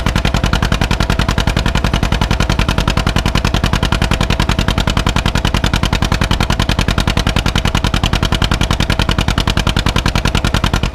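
1952 John Deere B tractor's two-cylinder engine running with a rapid, perfectly even popping exhaust.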